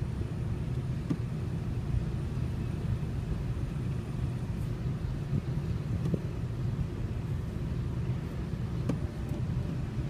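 Steady low rumble of a car's engine and tyres on a snow-covered road, heard inside the moving car, with a few faint knocks.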